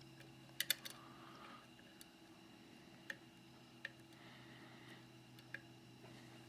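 Faint metallic clicks of a dimple pick working the pins of a Securemme K2 10-pin dimple lock held under tension, with pins setting: a quick double click about half a second in, then single clicks about a second apart.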